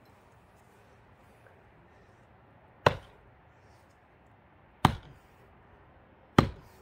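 Three sharp wooden knocks of an axe and a pine log striking, about one and a half to two seconds apart, as an axe stuck fast in the log is worked loose.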